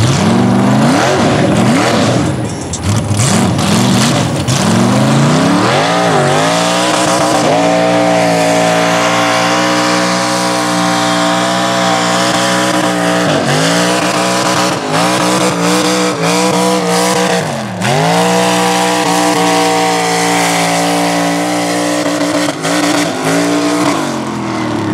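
Mud bog truck's engine revving hard under full throttle as it tears through a mud pit. The pitch climbs over the first several seconds, holds high with two brief dips, and falls away near the end.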